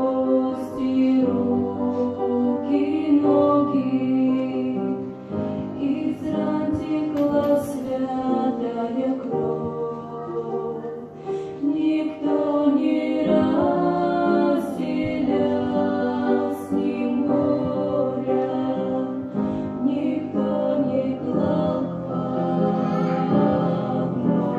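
A Christian song sung by a group of voices, choir-like, over instrumental accompaniment.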